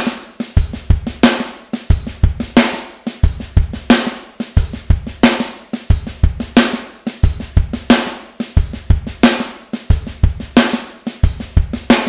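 Electronic drum kit playing a steady groove: kick drum and a loud accented snare backbeat about every 1.3 seconds, with soft snare ghost notes and hi-hat strokes in between.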